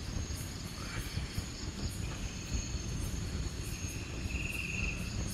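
Night insects chirping in a steady high chorus, with a buzzy trill about four seconds in, over a continuous low rumble.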